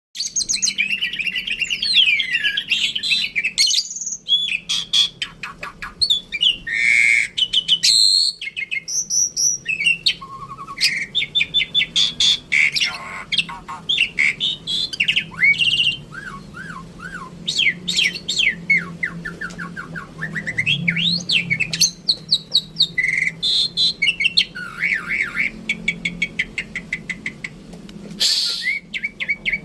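Songbirds singing loudly and non-stop: a busy mix of sweeping whistles, rapid chattering trills and short repeated notes, typical of birds in full song.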